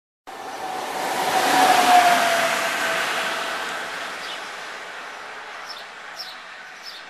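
Electric-locomotive-hauled train passing through a station, cutting in suddenly, loudest about two seconds in, then fading as it moves away, with a steady whine that slides slightly lower in pitch. Birds chirp a few times in the second half.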